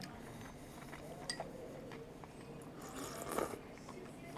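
Quiet eating sounds: a metal spoon clinks once against the bowl with a short ring about a second in, and there is a brief soft sip of soup near the end.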